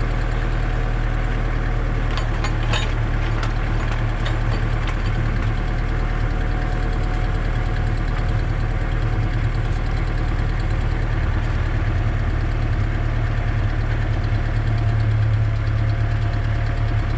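Kubota tractor's diesel engine running steadily under load while its attachment digs a hole in the ground, with a few short clicks or rattles about two to three seconds in.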